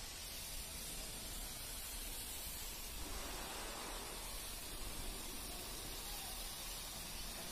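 Steady hissing background noise of an industrial construction yard, with a low rumble underneath and no distinct event.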